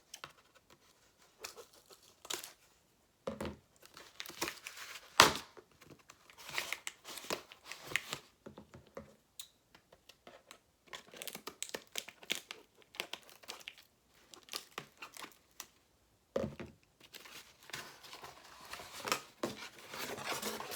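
Cardboard comic mailer being torn open by hand: irregular ripping and crinkling with scattered taps, and one sharp knock about five seconds in.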